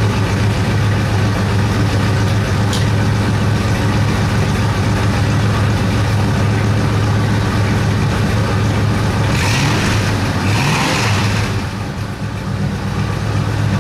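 AMC 401 V8 idling steadily through Hedman headers and a freshly welded muffler pipe, heard from behind at the tailpipe while it warms up. About ten seconds in there is a brief rise in pitch with some hiss.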